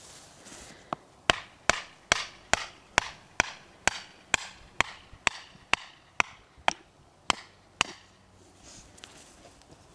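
A mallet repeatedly striking a wooden tent peg to drive it into turf, about sixteen sharp knocks at roughly two a second that stop a couple of seconds before the end.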